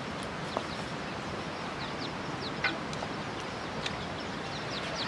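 Chickens peeping and clucking nearby: short, high, falling chirps come every second or so over a steady background hiss.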